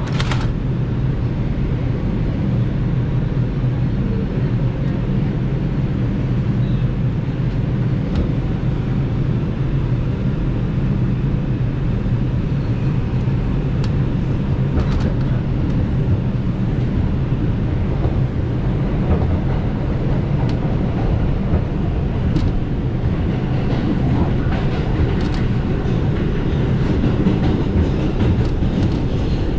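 New York City Subway train running between stations, heard from inside the car: a steady loud rumble with scattered faint clicks from the wheels and track. A sharp knock comes right at the start.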